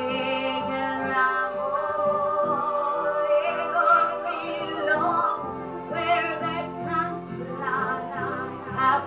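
Musical-theatre song playing: a singing voice holding long notes over instrumental backing.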